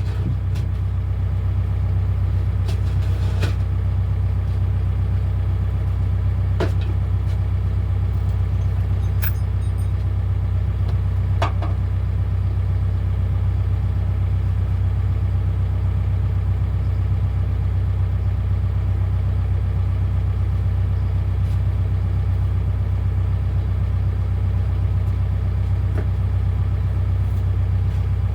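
Excavator engine running steadily at a low, even drone, with a few faint knocks now and then.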